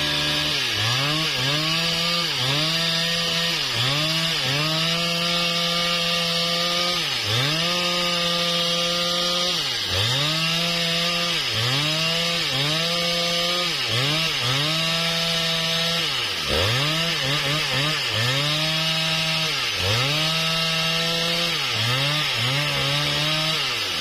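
Husqvarna 395XP two-stroke chainsaw sawing into a sengon trunk. The engine pitch drops and climbs back again and again, about once a second, with a few longer stretches held at high revs.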